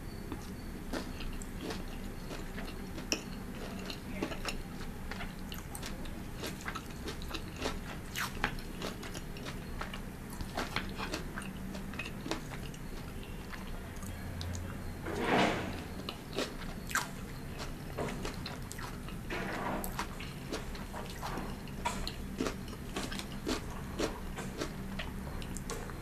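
Close-miked chewing of a mouthful of pan-fried noodles and vegetables, with irregular crunches and wet mouth clicks. About fifteen seconds in there is one longer, louder rush of noise.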